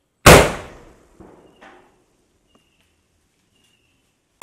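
Aerial firework shell going off: a sharp, loud bang just after the start that dies away over about a second, followed by two small pops, then a second loud bang right at the end.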